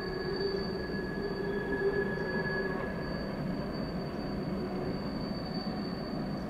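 Empty Union Pacific coal train's hopper cars rolling past with a steady low rumble, their wheels squealing in steady high tones on the curving track; the lower squeal tones fade out about halfway through.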